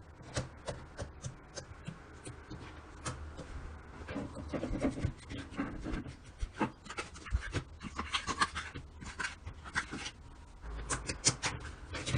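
Slime being handled, making a dense run of irregular sticky clicks and pops that grows busier partway through.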